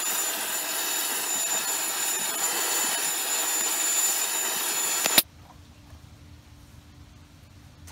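Gas torch flame running with a steady hiss as it heats steel horseshoes, stopping abruptly about five seconds in. A faint low hum remains after.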